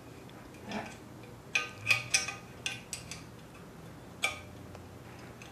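Combination wrench clinking on the nuts of the magneto backing plate of a Briggs & Stratton engine block as they are tightened: several separate light metal clicks and taps.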